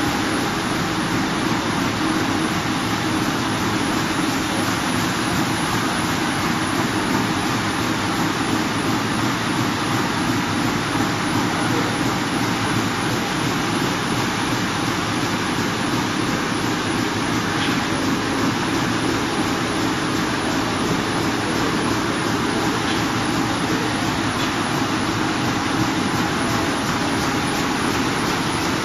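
Large sheet-fed offset printing press running: a loud, steady mechanical din with a fast, even rhythm and no pauses.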